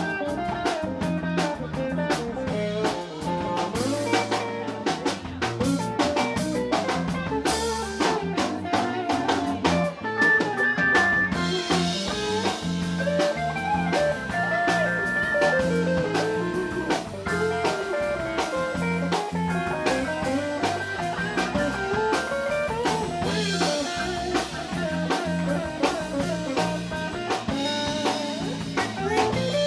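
Small live band playing an instrumental number: Hammond B-3 organ and electric guitar over bass guitar and drum kit.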